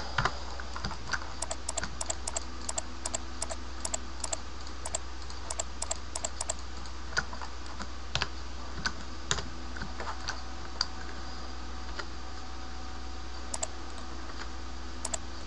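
Computer keyboard keys and mouse buttons clicking as shortcuts and selections are worked in 3D modelling software. There is a quick run of clicks in the first six seconds, then scattered single clicks, over a steady low hum.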